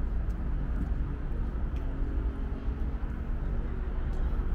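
City street traffic: a steady low rumble of passing vehicles, with a faint engine hum rising out of it through the middle.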